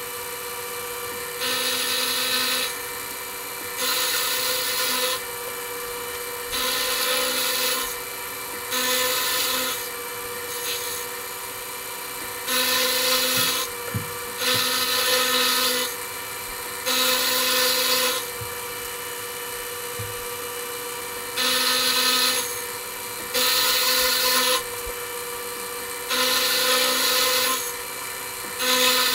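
Metal being cut: about a dozen noisy strokes of a second or so each, at uneven intervals, over a steady machine hum.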